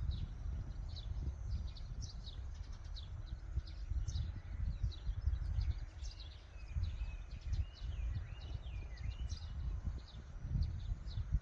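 Small birds chirping over and over, with one longer falling call partway through, above an uneven low rumble of wind on the microphone.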